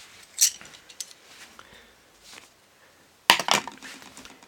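Aluminium screwgate carabiner clinking as it is handled and set down on a scale: a light click about half a second in, then a louder sharp clatter with a brief rattle about three seconds in.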